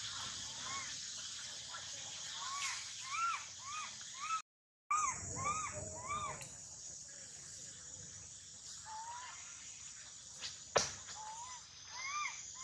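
A young monkey's repeated short cries, each a brief rise and fall in pitch, coming about two or three a second in a few bouts over a steady high hiss.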